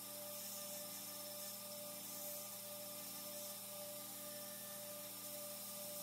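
Faint steady electrical mains hum with a soft hiss: room tone with no distinct events.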